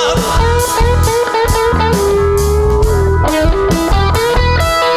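Rock band playing live: an electric guitar plays a lead line with sliding, gliding notes over steady drums and bass guitar, with no singing.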